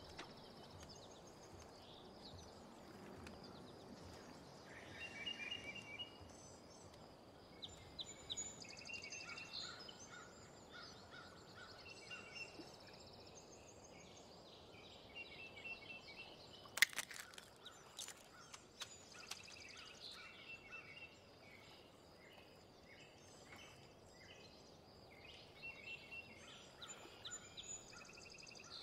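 Faint outdoor ambience with birds chirping and calling again and again. A single brief sharp crack comes a little over halfway through.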